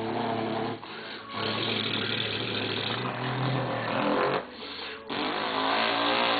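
A man imitating an engine with his voice: a steady, buzzing mouth drone, broken by two short pauses about a second in and again at about four and a half seconds.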